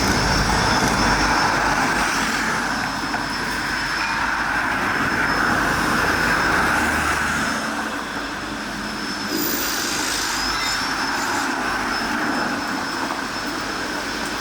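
Tram running on steel rails, with a thin, steady high-pitched wheel squeal over the rolling rumble; the squeal wavers about ten seconds in.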